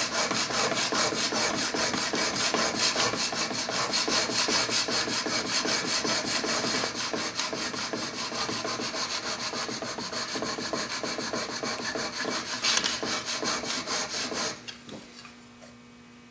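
Steel chisel bevel held in a honing jig being scrubbed back and forth on a DMT diamond sharpening stone in quick, steady strokes, grinding the bevel flat to a clean facet. The scraping stops about two seconds before the end, leaving a faint hum.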